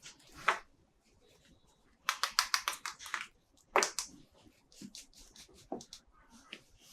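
Hands handling plastic toy packaging and parts: a short rustle, then a fast run of about ten clicks about two seconds in, and a single sharp snap a little later.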